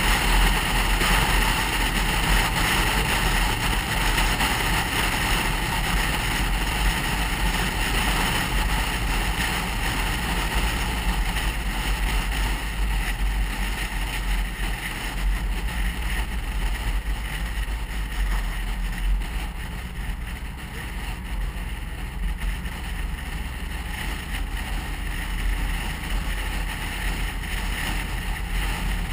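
A car cruising along a road, heard from inside the cabin: a steady rumble of engine and tyres with wind noise, easing slightly about two-thirds of the way through.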